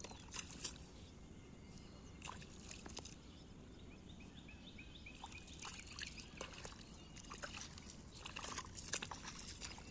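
Wet squelches and splashes of hands pulling rice seedlings out of muddy paddy water and of bare feet wading through it, scattered short sharp sounds. A quick run of short high chirps comes through about four to six seconds in.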